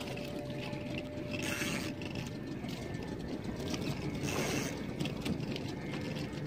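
Fishing reel worked during a fight with a hooked tuna, a faint mechanical clicking over steady wind and sea noise, with two brief hissing swells.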